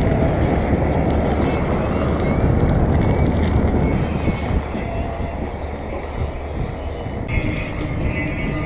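Steady rumbling wind and road noise, as from a camera carried on a moving bicycle.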